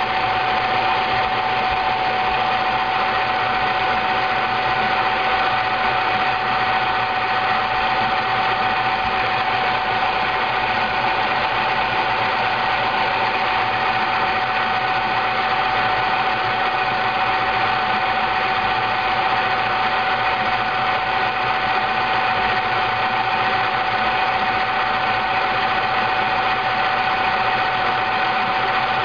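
Froth Au Lait automatic milk frother running: a steady motor hum with one strong, unchanging tone.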